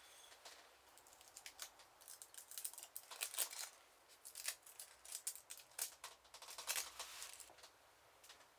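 Gold leaf foil and its paper backing crinkling and crackling as they are handled and pressed around a leather book spine, with many quick, small crackles.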